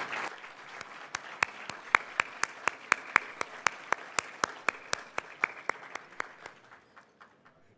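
Audience applause, with one person's sharp, close hand claps at about four a second standing out over it. The applause and claps die away near the end.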